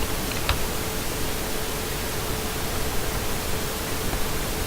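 Steady, even hiss with a faint steady tone underneath and a single small click about half a second in.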